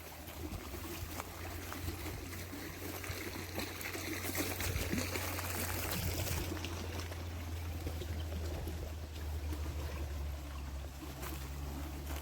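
River water flowing in a steady rush, with a brighter hiss for a couple of seconds around the middle. A low steady rumble underneath.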